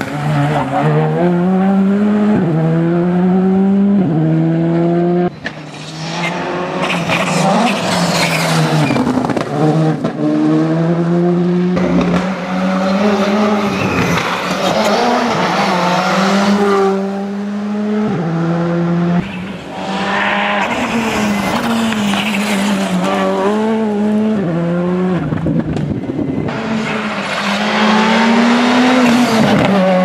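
Škoda Fabia R5 evo rally car's turbocharged 1.6-litre four-cylinder engine at full attack, revving hard through the gears. Its pitch climbs, then drops back at each upshift. Several passes follow one another, each breaking off abruptly.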